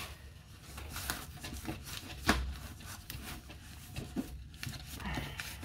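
Quiet handling of a rolled diamond-painting canvas: rubbing and light taps, with one sharper knock on the wooden table about two seconds in.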